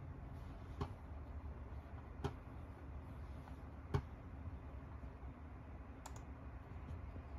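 Four single sharp clicks of a computer being operated, spaced one and a half to two seconds apart, the third the loudest, over a low steady hum.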